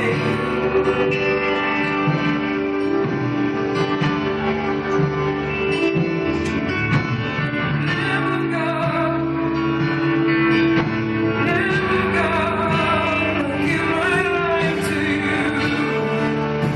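Live worship music: sustained instrumental chords with guitar, and sung vocal lines wavering above them.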